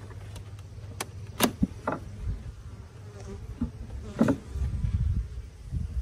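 Honeybees buzzing from an opened Langstroth hive, with several sharp wooden knocks and cracks as the inner cover is lifted off.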